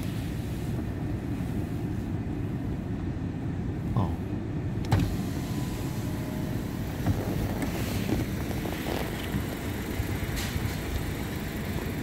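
Car power window motor lowering the side glass, over a steady low rumble of the car, with a few light clicks and knocks.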